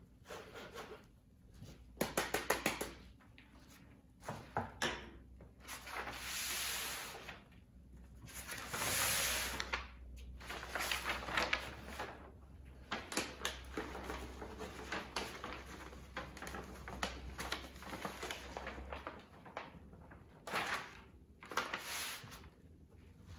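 Gloved hands rubbing damp black powder across a wire-mesh screen in a wooden frame: scraping and rustling, with a quick run of taps about two seconds in and two longer rustling swells a little later. Kraft paper is lifted and rustled, and the screen frame knocks as it is moved.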